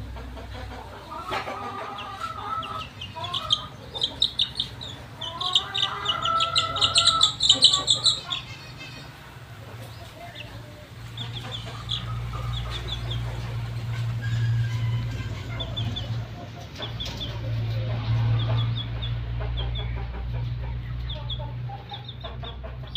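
Young chicken calling while it is held: a loud run of shrill, rapid squawks in the first several seconds, then quieter clucks and short high peeps. A steady low hum runs underneath.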